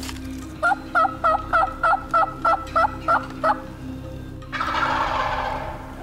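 Wild turkey yelps: a run of about ten short notes at roughly three a second, each breaking from a lower to a higher pitch. About four and a half seconds in comes a rougher, rattling sound lasting about a second and a half.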